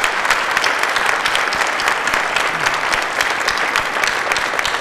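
A roomful of seated audience applauding steadily, a dense patter of many hands clapping.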